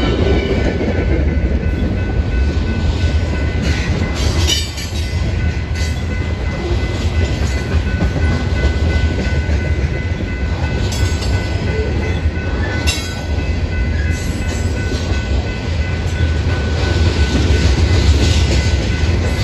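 Freight train's tank cars and covered hoppers rolling past: a steady rumble of steel wheels on rail, with a few sharp clacks and a thin steady high tone.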